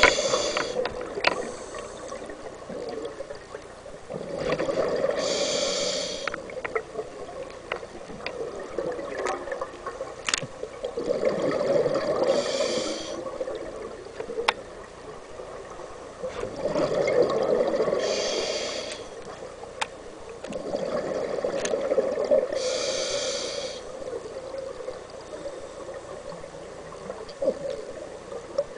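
Scuba diver breathing through a regulator underwater: a hiss with each inhale and a rush of bubbling exhaust bubbles with each exhale, about five breaths coming every five to six seconds.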